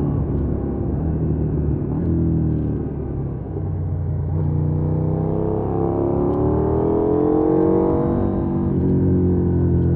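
2020 KTM 790 Duke's parallel-twin engine under way. The engine note dips about three seconds in, then climbs steadily under throttle to a peak near eight seconds and falls away again near the end.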